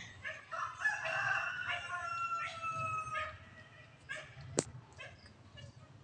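A rooster crowing once, a long call that starts about a second in and sags in pitch toward its end, with shorter animal calls repeating around it. A single sharp click follows a little later.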